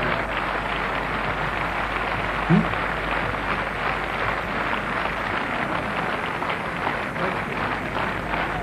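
Large audience applauding, thick crackling clapping mixed with a murmur of voices. About two and a half seconds in there is one brief loud rising tone.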